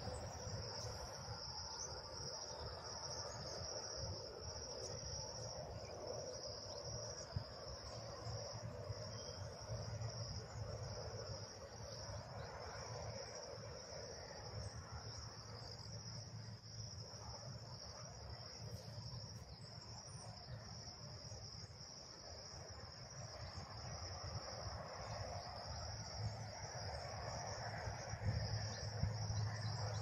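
Steady, continuous high-pitched buzz of an insect chorus, with a low uneven rumble underneath.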